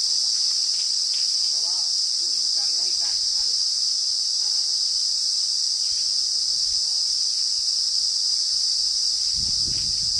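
Insect calling, a loud, continuous high-pitched drone that holds steady without pause.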